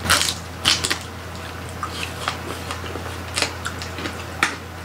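Close-miked chewing of roast pig (lechon): short crunchy, crackly bites of crispy skin and wet mouth sounds, loudest right at the start and again a few times later, over a steady low hum.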